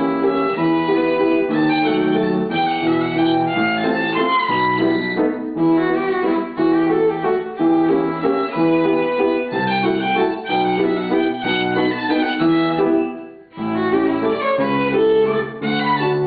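Bowed violin playing a melody, with piano accompaniment underneath. The music breaks off for a moment about thirteen seconds in, then carries on.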